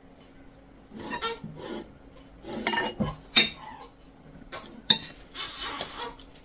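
A metal fork clinking and scraping against a ceramic plate as it cuts through a slice of cake, with several sharp clinks, the loudest about three and a half and five seconds in.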